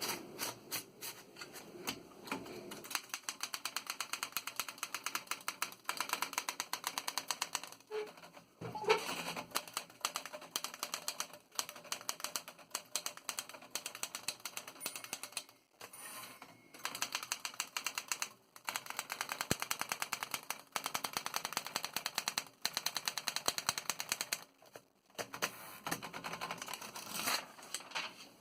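Typing on a 1929 L.C. Smith & Corona No. 8 Secretarial manual typewriter: long runs of rapid key strikes, several a second, broken by a few short pauses.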